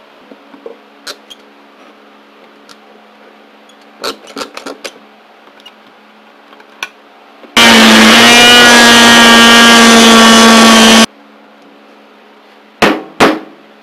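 Oscillating multi-tool plunge-cutting into a satellite-dish LNB shell: after a few light handling clicks it runs for about three and a half seconds as a loud, steady buzz that rises slightly in pitch as it starts, then stops suddenly. A couple of sharp knocks follow near the end as the shell is handled.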